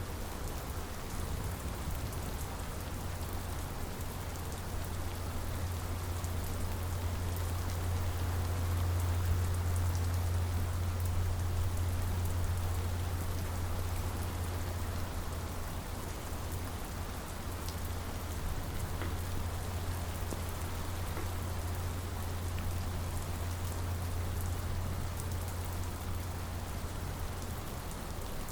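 Steady rain falling and pattering on surfaces, an even hiss over a constant low rumble that swells a little around the middle.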